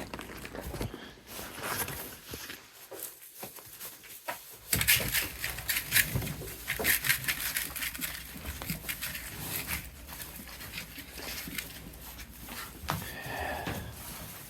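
Livestock eating feed, with irregular crunching, knocking and rustling as they nose through their food. A short animal call comes near the end.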